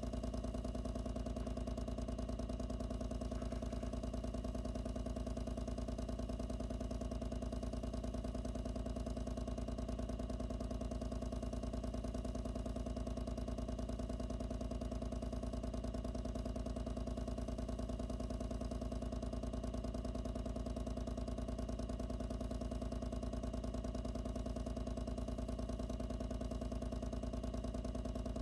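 Electric water pump running steadily, a constant low hum, picked up by a microphone placed inside the pump's box.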